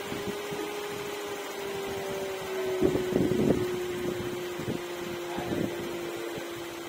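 Nissan SUV engine idling soon after a morning start, a steady hum that sinks slightly in pitch, with faint irregular ticks. The louder start-up engine noise is settling as the engine oil reaches all the parts.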